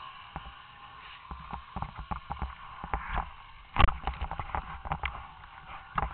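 Irregular knocks and thumps of the camera being handled and jostled, the loudest about four seconds in. A snowmobile engine hums faintly under them and fades out within the first second.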